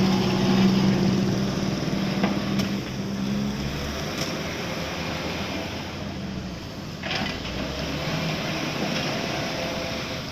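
Engine of heavy construction machinery running steadily, its hum strongest for the first few seconds and then easing off, with a few sharp knocks along the way.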